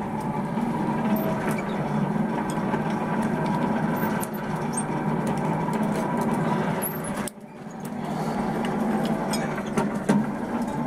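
Steady hum of a running motor, with a few faint clicks. It drops away briefly about seven seconds in and builds back up.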